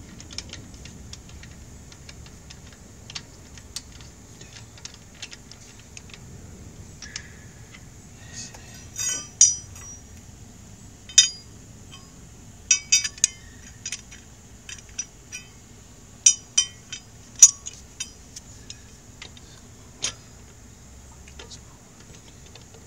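Irregular sharp metallic clinks and taps of lug nuts and a wheel wrench as a car wheel is bolted back on. They are light at first, then louder and more frequent through the middle and second half.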